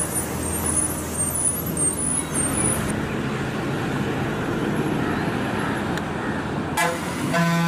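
A bus driving past on a road, with engine and tyre noise at a steady level, and small birds chirping during the first few seconds. A steady pitched tone begins near the end.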